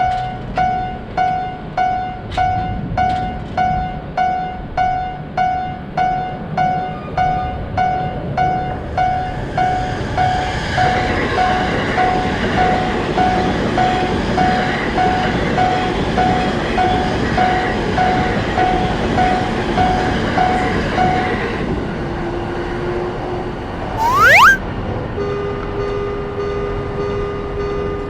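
Japanese level-crossing bell ringing its steady 'kan-kan', about one and a half strikes a second, as a train passes from about nine seconds in. Bell and train noise stop together about three-quarters of the way through. Near the end comes a quick rising whistle, then steady held tones.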